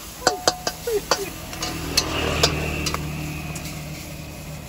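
A metal spatula clanking and scraping against a steel wok as stir-fried basil pork is scooped out: a run of sharp clanks in the first two and a half seconds, then a steadier scraping rumble.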